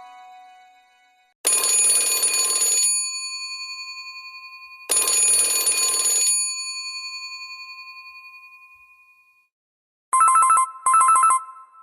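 Alcatel OT-995 mobile phone ringtones playing in turn: two struck metallic bell tones with long ringing decays, then near the end a double burst of rapid trilling like an old telephone ring.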